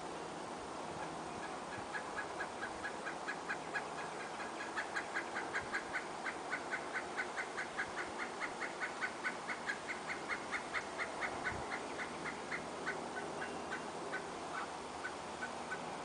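Pileated woodpecker giving a long series of short, even call notes, about four a second, beginning about a second in, loudest through the middle and easing off toward the end.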